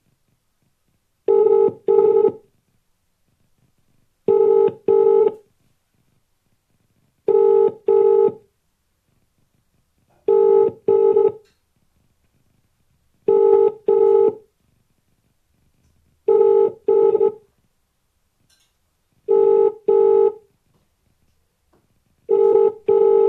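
British telephone ringing tone heard by the caller: a double ring, two short steady buzzes, repeating eight times at about three-second intervals. An outgoing call is ringing out and has not been answered.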